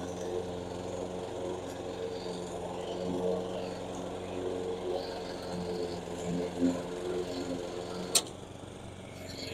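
Weibang walk-behind petrol lawn mowers running steadily while cutting long wet grass. A sharp click comes a little after eight seconds, after which the engine sound drops away.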